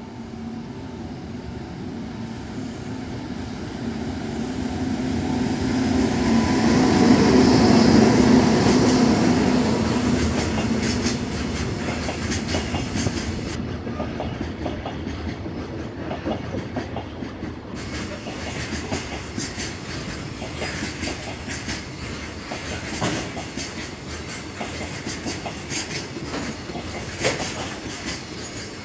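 JR Freight EH200 twin-unit electric locomotive passing close by, its hum growing to a peak about eight seconds in. It is followed by a long container train of Koki flatcars rolling past, with a steady clickety-clack of wheels over the rail joints.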